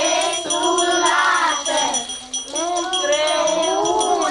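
A group of young children singing a New Year's carol together, with small bells jingling throughout; the singing breaks off briefly about halfway and resumes.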